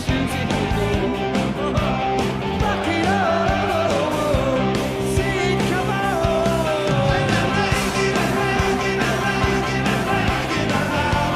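Background rock music with guitar, a steady beat and a singing voice.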